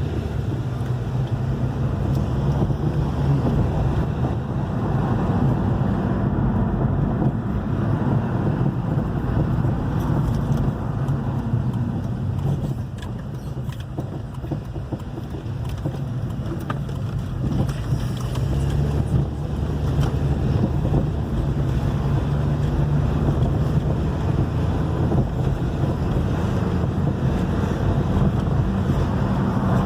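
2011 Hyundai i30 with a 2.0 petrol engine being driven, its engine and road rumble running steadily, with scattered sharp knocks. The knocks fit the suspension knocking over uneven pavement that the owner complained of.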